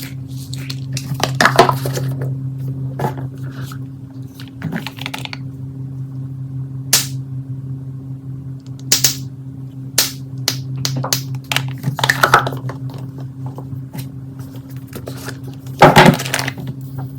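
Plastic fidget toys being handled: scattered clicks, taps and short rustles, with a loud clatter about 16 seconds in, over a steady low hum.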